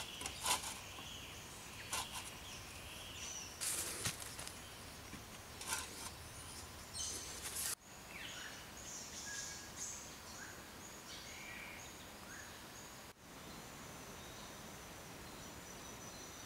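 Forest ambience: birds chirping briefly and insects keeping up a steady high, thin buzz, with a few soft knocks or rustles in the first half.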